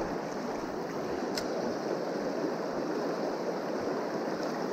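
Shallow river riffle: water running fast over stones with a steady rushing noise.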